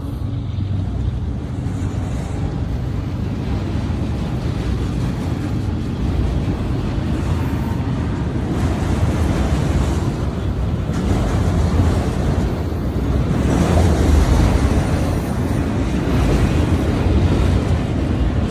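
Freight train of autorack cars rolling past close by, a steady rumble of wheels on the rails.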